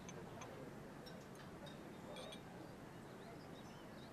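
Near silence: faint room tone with a few light, high ticks.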